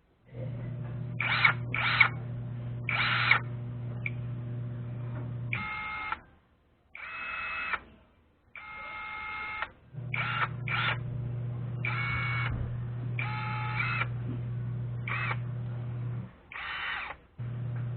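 Total impact wrench running in test bursts: a steady motor hum for about five seconds, then again for about six seconds, and briefly near the end, with short higher-pitched clattering bursts during and between the runs.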